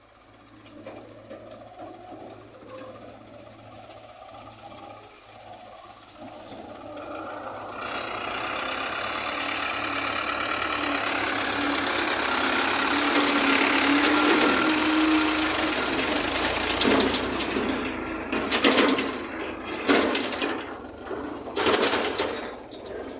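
Case JX70T diesel tractor pulling a loaded trailer, its engine running and growing louder as it draws close about halfway through. Several loud clattering knocks come near the end.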